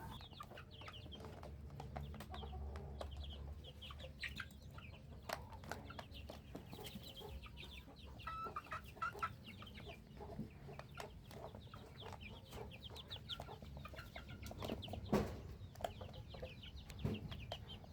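Chickens clucking faintly, with many short high chirps throughout and a couple of brief louder sounds near the end.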